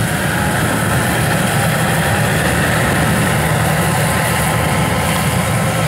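Yanmar AW1000V rice combine harvester running steadily while cutting ripe rice, its engine and threshing machinery making an even drone.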